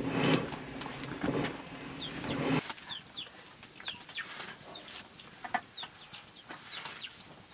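Muffled voices and handling noise for the first couple of seconds, cut off abruptly. Then a small bird chirps over and over, each a short note falling in pitch, about two a second and often in pairs.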